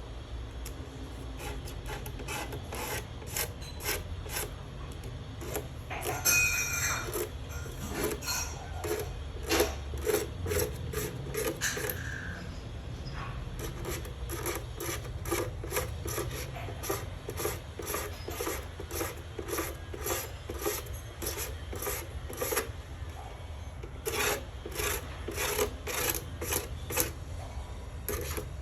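Repeated scraping or rubbing strokes, about three a second, over a low steady hum.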